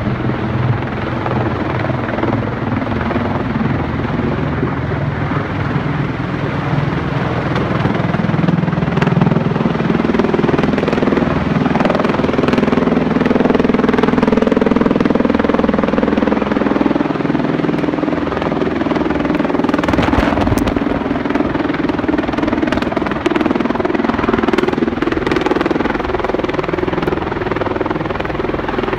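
MV-22 Osprey tiltrotor in helicopter mode, its two proprotors and turboshaft engines giving a loud, steady drone with low tones as it flies overhead on its landing approach. It grows loudest about halfway through as it passes closest.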